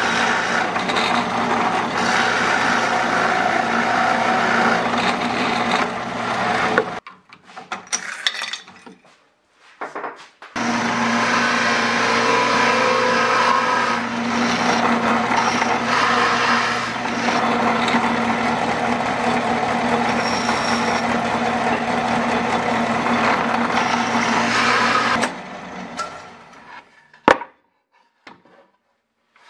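Drill press running with a steady motor hum as its bit cuts into plywood. The cutting stops about seven seconds in and resumes after a short pause for about fifteen seconds, then the drill press winds down near the end, followed by a single sharp click.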